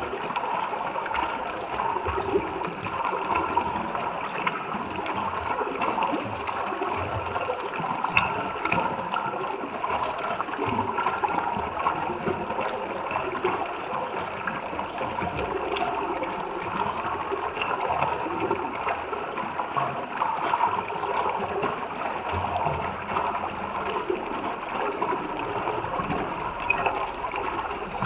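Running water bubbling and gurgling in a steady, continuous flow, like a small stream.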